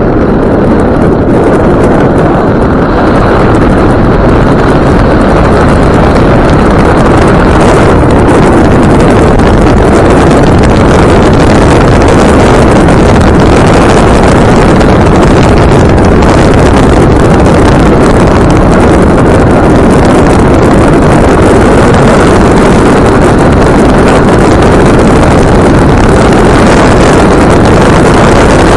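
Land Rover Discovery 2 driving on a paved road, heard by the open window: steady, very loud wind buffeting the microphone over the engine and tyre noise.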